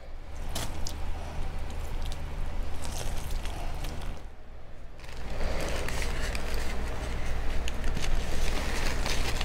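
Blocks of dyed gym chalk squeezed and crumbled in the hand, a dry crunching and crackling that dips briefly about four seconds in and comes back louder and denser. A steady low hum runs underneath.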